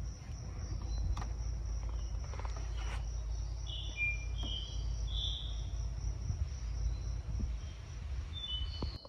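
Outdoor ambience: insects trill steadily and high over a constant low rumble, with a few short bird chirps about halfway through.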